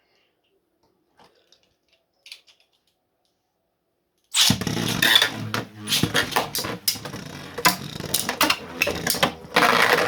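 Two 3D-printed Beyblade spinning tops launched into a stadium about four seconds in, then spinning and clashing, with many sharp clacks as they hit each other. Before the launch there are only a few faint clicks.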